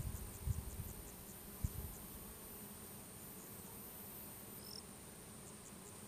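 Steady, high-pitched chorus of insects, crickets or similar, over a field of flowers, with a few short ticks in the first second. A few low thumps come in the first two seconds, and there is one brief chirp near the end.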